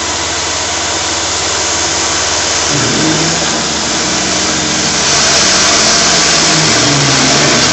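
CNC milling machine cutting a UHMW plastic disc with a slot mill, its spindle at full speed, over the steady rush of a shop-vacuum hose held at the cutter. From about three seconds in a humming tone shifts pitch as the machine moves, and the noise grows slightly louder about five seconds in.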